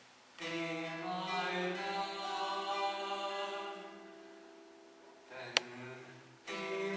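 A man singing a slow solo song in long held notes: one note swells in about half a second in and slowly fades, and a new phrase begins near the end. A single sharp click about five and a half seconds in.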